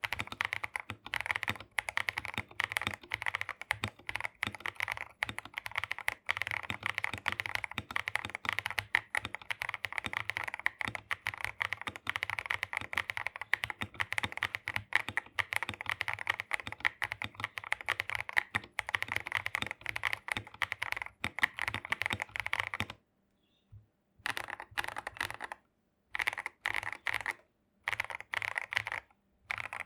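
Akko 3068B+ mechanical keyboard with Akko CS Jelly Purple tactile switches lubed with Krytox 205G0, on a polycarbonate plate with case foam, tape mod and PE-foam mod, being typed on fast. The steady typing breaks off about 23 seconds in and then comes in short bursts with pauses between.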